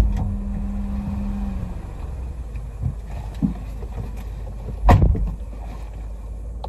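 A passenger getting into a car: a click at the start, small knocks and rustling, then the passenger door shut with a thud about five seconds in, over the steady low rumble of the idling car. A steady hum stops about a second and a half in.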